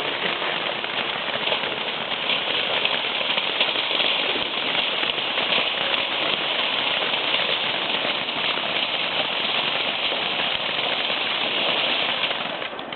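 A firework burning with a steady, dense crackling hiss that dies away near the end.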